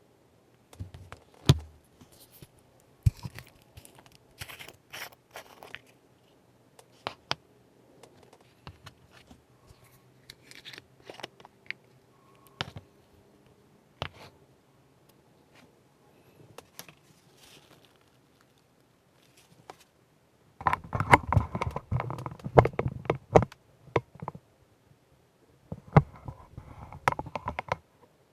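Handling noises at a modelling workbench: scattered clicks, taps and light scrapes of small tools and plastic parts, with denser rustling and rubbing about two-thirds of the way in and again near the end.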